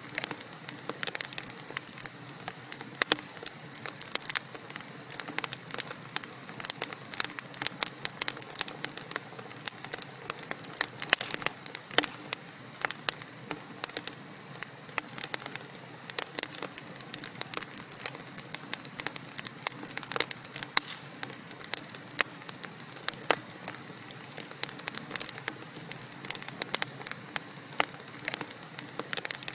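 Wood fire burning in a fireplace: logs crackling and popping with many sharp, irregular snaps over a steady soft hiss of the flames.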